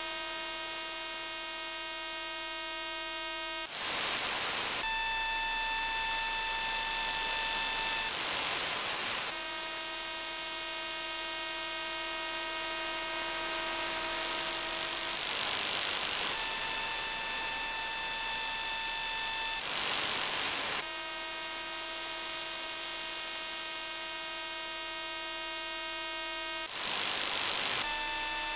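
Shortwave receiver audio in upper sideband on 28.600 MHz: a pulsed signal heard as a steady buzz of many evenly spaced tones, its pitch changing after each of five roughly one-second bursts of hiss. The uploader takes the signal for an over-the-horizon radar or an ionosonde, and is not sure which.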